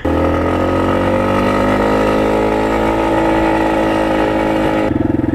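Dirt bike engine running at a steady speed, its pitch easing down slightly at first. Near the end it changes to a rapid throbbing beat.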